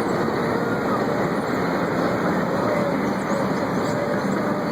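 Steady vehicle and traffic noise heard from inside a car, with faint wavering tones over it.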